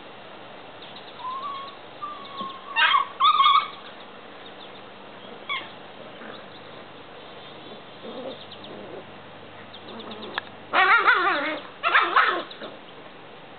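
Airedale puppies yipping and squealing as they play-fight, in a short flurry about three seconds in and a louder, longer one near the end.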